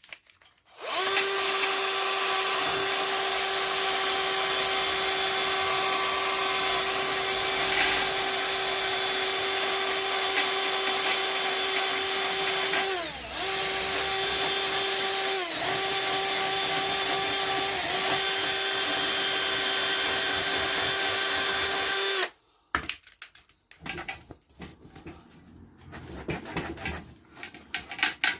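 Handheld electric power tool running at a steady high pitch for about twenty seconds while cleaning rust off a bicycle's steel rear rack. It briefly drops in pitch three times as it is pressed harder into the work, then stops suddenly, followed by light handling knocks.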